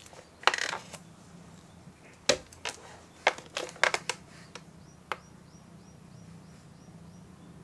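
Bare feet stepping onto and shifting on a digital bathroom scale on a wooden floor: a scatter of light taps and knocks, over a low steady hum. Near the end comes a quick run of about nine faint, high chirps.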